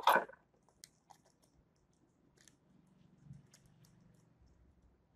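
Faint, scattered clicks and light scrapes of a small metal tool prying at a bare hard drive's connector end to work its USB adapter board loose. A short louder sound comes right at the start.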